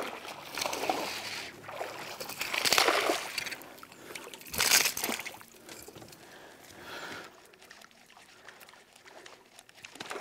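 Water splashing and sloshing as a hooked butterfly peacock bass (tucunaré borboleta) thrashes at the surface while being played. There are irregular splashes, the loudest about three seconds in and again near five seconds, then quieter sloshing.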